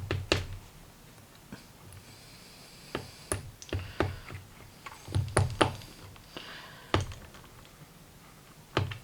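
Key pins being tapped and shaken out of the plug of a Tecon dimple lock: scattered sharp little clicks and light knocks of small metal parts, coming in several irregular clusters.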